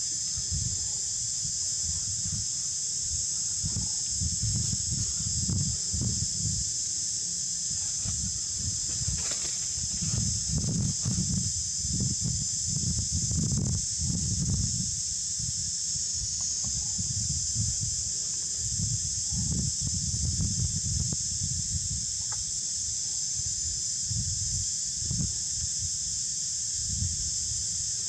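A steady, high, hissing drone of insects, unbroken throughout, over irregular low rumbles that come and go, heaviest in the middle.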